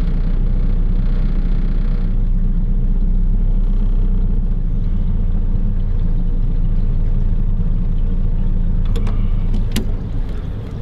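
Boat motor running steadily as the boat moves, a loud low rumble, with a few sharp clicks near the end.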